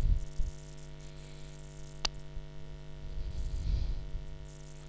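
Steady electrical mains hum on a desk microphone, with a few low thumps at the start and a single sharp click about two seconds in.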